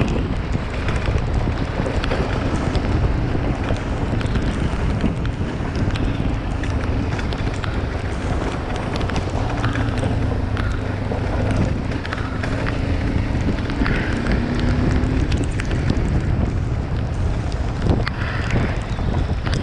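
Wind buffeting the microphone while riding along a road, a steady rushing noise, with a faint hum in the middle stretch.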